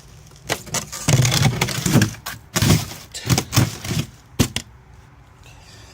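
Frozen food packages being handled in a cooler: plastic crinkling with hard clacks and knocks of frozen packs. This goes on busily for about four seconds, then dies down near the end.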